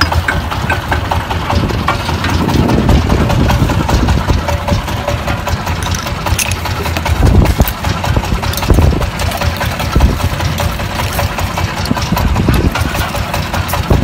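Small fishing boat's engine idling with a steady low rumble, with a few sharp clunks a little past the middle from the shell and can octopus traps being handled on deck.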